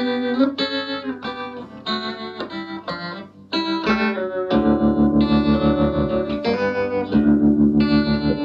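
Guitar played through a Davoli D531T 10 W push-pull valve amplifier: single picked notes at first, then, from about halfway, held notes that pulse evenly several times a second with the amp's tremolo.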